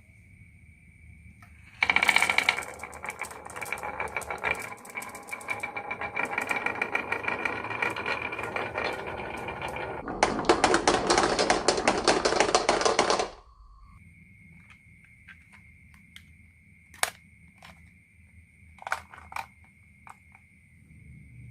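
Marbles rattling and clattering down a marble run: a dense clatter for about eight seconds, then a louder, brighter rattle for about three seconds that cuts off suddenly, followed by scattered single clicks.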